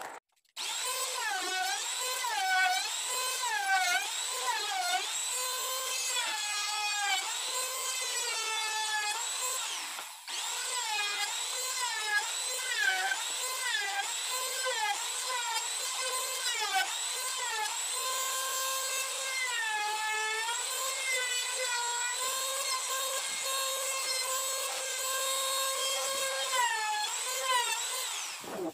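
Handheld trim router running at high speed, its whine dipping in pitch again and again as the bit bites into the wood and recovering between cuts, steadier in the later part. It breaks off briefly about ten seconds in.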